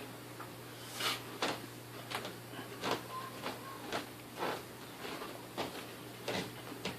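Cats play-fighting: irregular scuffles, rustles and about a dozen short, sharp thumps and knocks.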